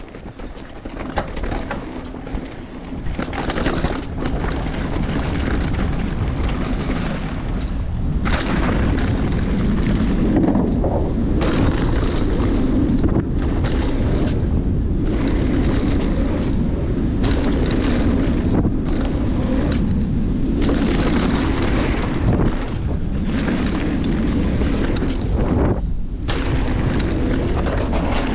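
Mountain bike riding fast down a dry dirt trail: wind buffeting the rider-mounted camera's microphone over the rush of tyres on loose dirt and the rattle of the bike. It builds over the first several seconds as speed picks up, then stays loud and steady.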